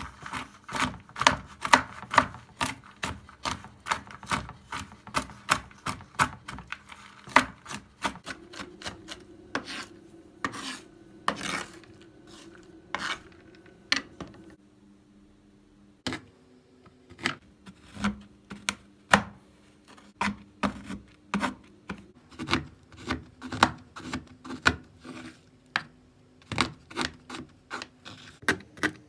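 A kitchen utensil clicking and scraping against cookware, a few quick strokes a second, with a short pause about halfway through, over a faint steady hum.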